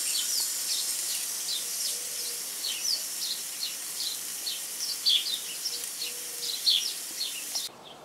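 Teriyaki pork loin and potato slices sizzling on a gas grill's grates, a steady high hiss. Small birds chirp repeatedly in the background. The sound cuts off abruptly near the end.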